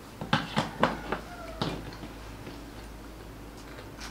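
Plastic squeeze bottle of mustard sputtering and squelching in a quick run of short spurts as it is squeezed, with a brief squeak near the middle.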